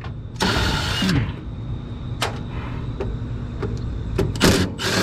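Cordless impact driver backing sheet-metal screws out of a heat-exchanger bracket in short bursts: one burst of under a second about half a second in and another near the end, over a steady low rumble.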